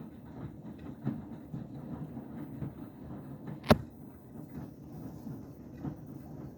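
Beko WTK104121W washing machine tumbling a sudsy half load of towels in its Cottons 60 main wash: a steady low churning with small irregular thuds as the load drops in the drum. One sharp knock comes a little past halfway.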